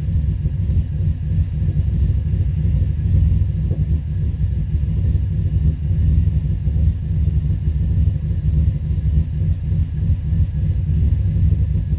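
2005 Subaru Forester XT's turbocharged 2.5-litre flat-four idling roughly, a steady low rumble that wavers unevenly; the engine is running rich and stumbles when given gas.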